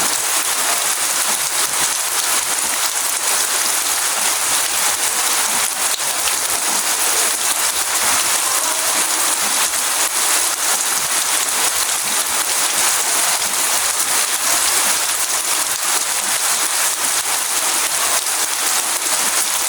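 Steady rain falling, an even dense hiss of many drops with fine pattering, unchanging throughout.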